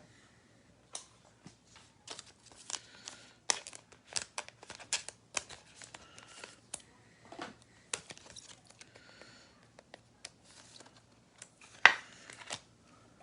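Trading cards and plastic packaging handled up close: irregular rustling, crinkling and small clicks, with one sharper snap near the end.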